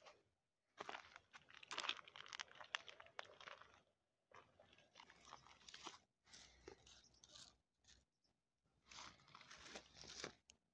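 Cats crunching dry kibble: faint, irregular stretches of crackly chewing, broken by short pauses.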